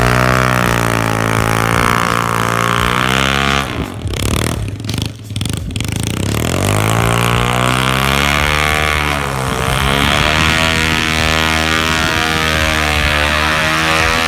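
2004 Suzuki DR-Z110 pit bike's small single-cylinder four-stroke engine revving hard, close to the rev limiter, as the bike fights for grip in deep snow with the rear wheel often spinning. The revs drop briefly about four seconds in, then climb and stay high.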